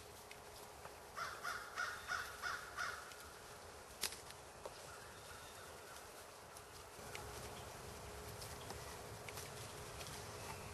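A crow cawing, a quick series of about six harsh caws starting about a second in. A single sharp click follows about four seconds in.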